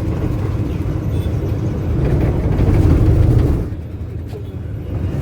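Engine and road rumble heard from inside a moving minibus. It swells for a few seconds, drops off suddenly about three and a half seconds in, then picks up again near the end.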